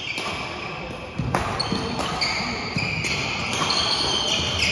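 Badminton doubles rally on a wooden gym floor: sneakers squeaking in short high squeals as the players move, and the sharp click of a racket striking the shuttlecock about a second and a half in and again near the end.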